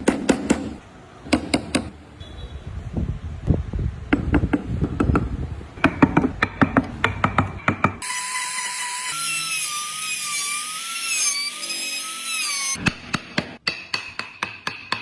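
Woodworking tools on wood: a run of irregular sharp knocks and taps, then for about four seconds a wavering whine that rises and falls in pitch, then more taps near the end.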